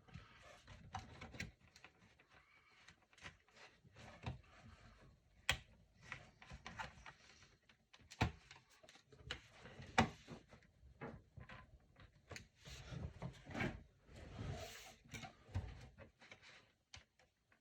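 Plastic bottom cover of a laptop being pried loose: scattered clicks and soft scraping as its edge is worked free, with a few sharper snaps.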